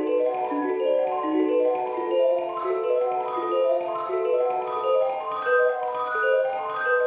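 Background music: a light mallet-percussion tune of short ringing notes stepping up and down at an even pace.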